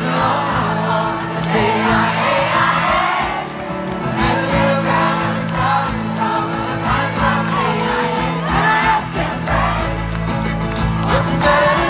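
Live concert music heard from within the crowd: a band with acoustic guitars and fiddle playing under singing, with crowd noise. A deep bass comes in near the end.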